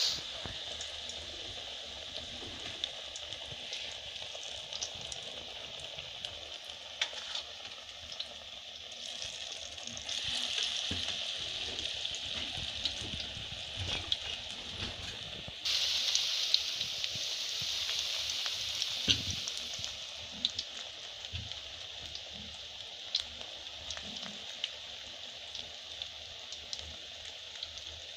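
Besan-battered cauliflower pieces deep-frying in hot oil: a steady sizzle with scattered pops and crackles. It swells twice, the second time suddenly, about halfway through.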